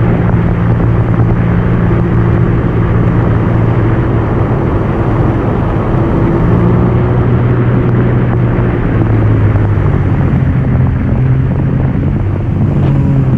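Yamaha WaveRunner VX Deluxe personal watercraft engine running steadily under way, its pitch shifting a few times as the throttle changes, over the rush of water.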